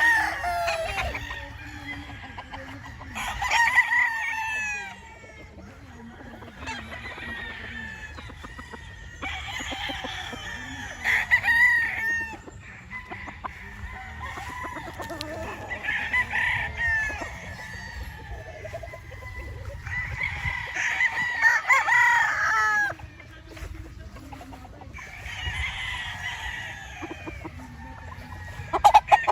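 Roosters crowing one after another, about six crows spaced every four to six seconds, each a loud call that bends in pitch.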